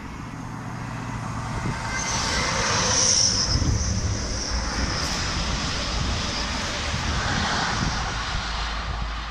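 HST (InterCity 125) diesel train passing at speed: a rushing roar of engines, wheels and air that builds to a peak about three seconds in, with a high whine over it, then holds steady.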